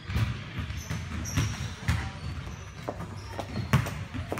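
Gym sounds: irregular thuds and knocks, roughly every half second, with a few short high squeaks.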